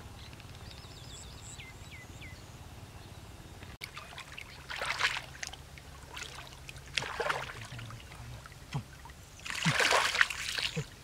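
Hands churning and splashing in shallow muddy water, in irregular bursts, while groping in the mud for catfish; the loudest splashing comes near the end. Before that, for the first few seconds, there is only a steady low rumble with a few faint high chirps.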